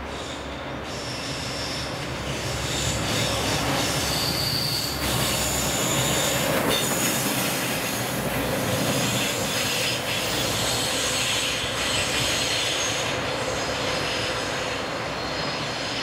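JR Freight EF210 electric locomotive running light and passing close by, its wheels squealing on the curved track. The sound builds to its loudest about halfway through as the locomotive goes past, then eases slightly as it moves away.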